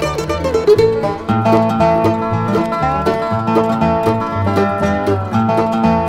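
Instrumental bluegrass band recording: fast picked banjo and flatpicked acoustic guitar over a steady bass line, with no vocals.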